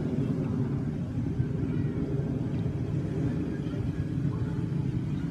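Wind buffeting the microphone: a steady low rumble that flickers without a break.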